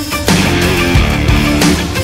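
Background music: loud heavy-metal-style rock with distorted guitar and drums.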